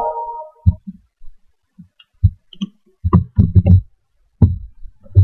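Computer keyboard keystrokes and mouse clicks picked up as dull, irregular knocks, with a quick run of them about three seconds in, typing a Windows XP logon password.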